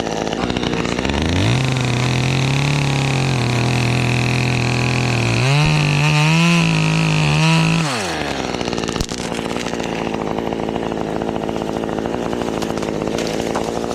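Chainsaw revved up and cutting the tree's top out, its engine note steady under load, then climbing higher and wavering for a couple of seconds as the cut finishes, before dropping back to idle.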